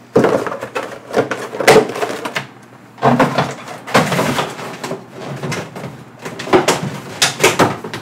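Product packaging being handled on a desk: irregular bursts of rustling and crinkling, with knocks and clatter as pieces are picked up and set down.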